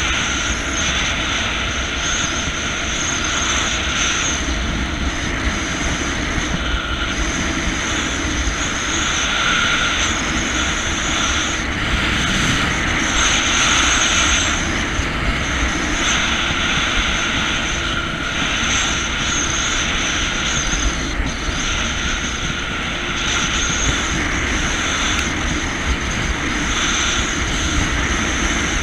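Jet ski engine and water jet running steadily at cruising speed, with water rushing past the hull.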